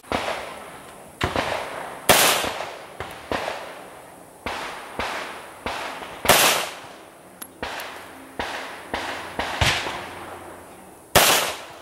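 An irregular string of about a dozen pistol shots of varying loudness, each trailing off in an echo; the three loudest come about 2 seconds in, about 6 seconds in and near the end.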